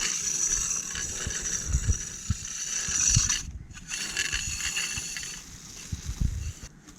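Rope being hauled through a pulley block, the pulley wheel running with a steady high whir and a few low knocks. It stops briefly about halfway through, then runs again.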